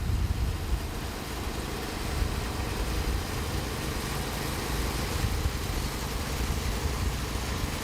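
Portable band sawmill's engine running steadily.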